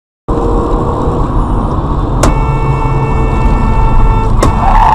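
Steady road and engine rumble of a moving car heard through a dashcam, starting abruptly a moment in, with a faint steady whine over it. Two sharp clicks come about two and four and a half seconds in.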